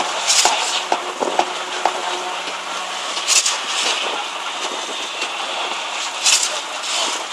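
Concrete pour: a concrete pump truck runs steadily, with short hissing bursts every few seconds. Hand tools knock a few times early on as wet concrete is raked.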